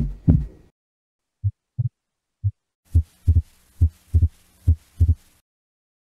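Human heart sounds recorded through a stethoscope, played back as short low thumps in a lub-dub rhythm. From about three seconds in, the second sound of each beat splits into two close thuds, the pattern of wide, fixed splitting of the second heart sound (S2).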